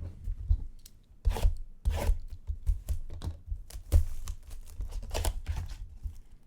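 Trading card packaging being torn open by hand: irregular tearing and crinkling of the wrapper, with low handling bumps.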